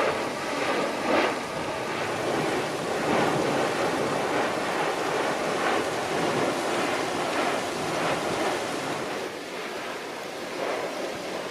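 Rushing surf-like noise of waves, with wind buffeting the microphone, swelling and easing a few times.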